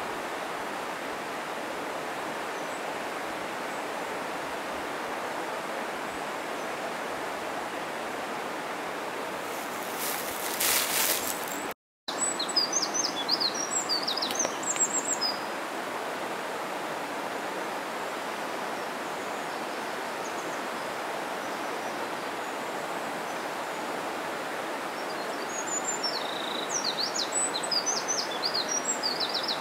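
Steady rush of a mountain stream, with small birds chirping in short bursts twice, and the sound cutting out for a split second near the middle.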